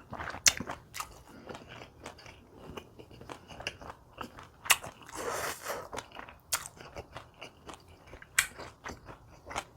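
Close-miked eating of kimchi, pork belly and rice: chewing with sharp crunchy bites scattered through, and a longer noisy swell about halfway.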